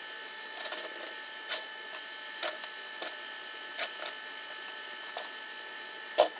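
Steel binder clips snapped one by one onto the edges of a plywood boat part to clamp it: a short sharp click with each clip, about eight in all, the loudest near the end. A faint steady high hum runs beneath.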